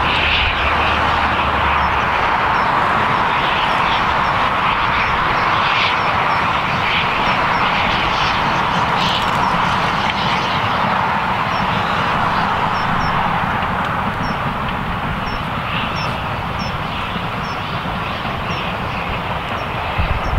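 Steam locomotive hauling a passenger train at speed: a steady rushing of exhaust and running gear that grows slightly quieter in the second half as the train draws away.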